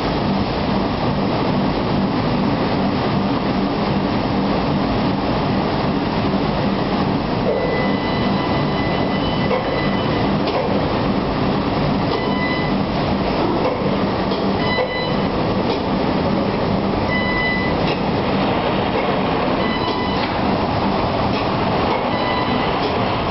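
Palletiser and roller conveyors of a Martin 924 corrugated-box production line running, a loud, steady mechanical din with a low hum. Short, faint high tones come and go from about eight seconds in.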